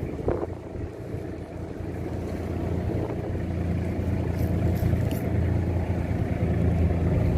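Fishing boat's engine running with a steady low hum that grows louder from about two seconds in.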